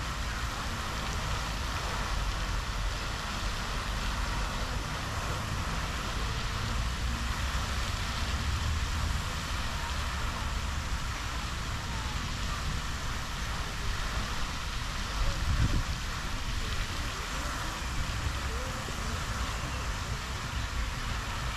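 Steady hiss of a tall fountain jet's spray falling onto a lake, over a low rumble of wind on the microphone, which swells briefly louder about fifteen seconds in.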